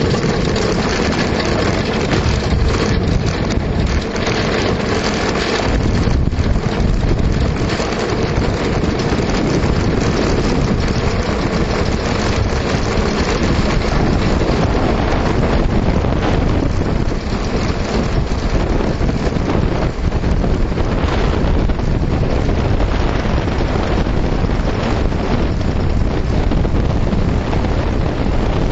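Wind buffeting the onboard microphone over the steady rumble of an engineless billy kart's wheels rolling fast on a gravel dirt road, with frequent jolts and rattles from the bumps.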